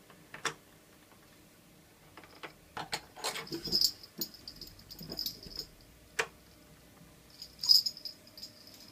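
Sureflap microchip cat flap knocking, rattling and clicking as a cat works at it. There is a single knock, then a run of rattles, a sharp click, and a bright jingling rattle near the end.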